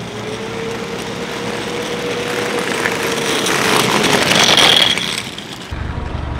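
A road vehicle approaching and passing close by, growing louder to a peak about four and a half seconds in with a steady hum and a hiss, then fading. Near the end it gives way abruptly to a low steady rumble.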